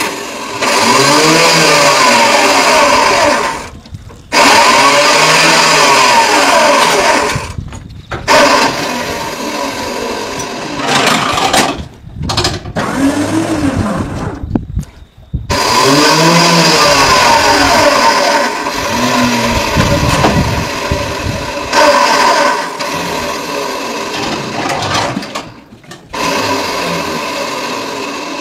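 An electric motor whining, repeatedly speeding up and then slowing down every few seconds, broken by several sudden cuts.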